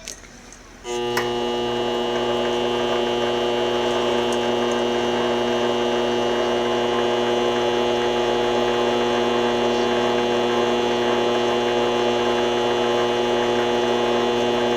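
Vevor 7x14 mini lathe starting up about a second in and then running steadily with an even, multi-tone hum as the spindle turns the chuck for a runout check, with a click just before it starts.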